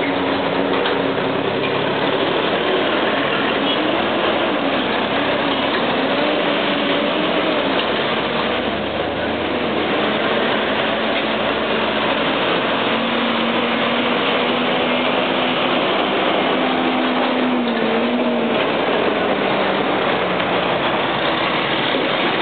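Diesel engines of semi-trucks running as tractor-trailers drive past, their engine notes rising and falling.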